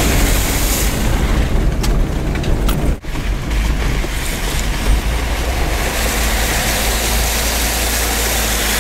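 Off-road vehicle running on a rough dirt track, heard from inside the cab: a steady engine and tyre rumble with wind noise, and a brief dropout about three seconds in. In the second half the vehicle is in a shallow creek crossing, and a steady hiss of water joins the rumble.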